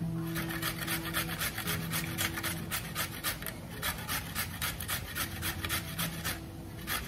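A carrot being grated on a flat stainless-steel grater: quick rasping strokes, about four a second, with two short pauses, one about halfway through and one near the end.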